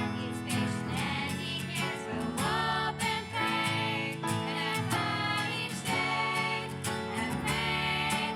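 Upbeat background music with instruments and singing voices.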